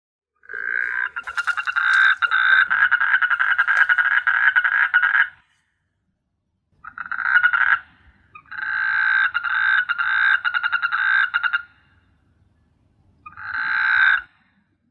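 Frogs calling: four bouts of fast, rattling pulsed croaks, the first about five seconds long and the others shorter. Each bout stops abruptly, with short silent gaps between them.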